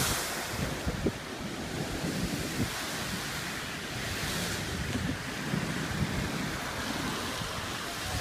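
Sea waves breaking against a stone sea wall at high tide and throwing spray over the promenade, a steady rushing wash with a surge of hiss about four seconds in. Wind buffets the microphone with a low rumble.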